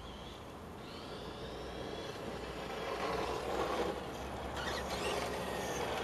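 Tamiya Desert Gator RC buggy's Super Stock TZ brushed electric motor and gears whining as the car is driven. The pitch rises and falls with the throttle, and the sound grows louder toward the middle as the car comes closer.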